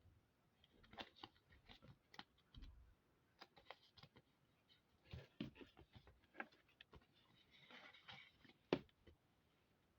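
Faint, irregular light clicks and taps from small objects being handled, with a scratchy rustle near the 8 s mark and a sharper knock just before the end.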